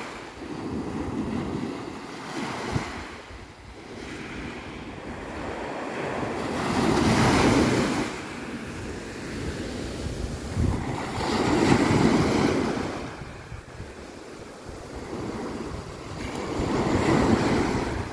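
Small waves breaking and washing up a sand-and-pebble beach, the surf swelling and fading four times, about every five seconds.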